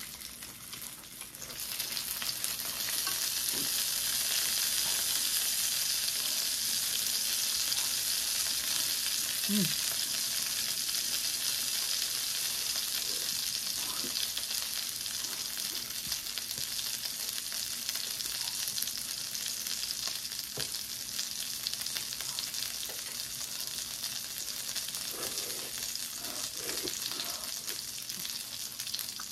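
Kimchi dumplings frying in oil in a frying pan: a steady sizzle that swells about two seconds in and holds, easing slightly near the end.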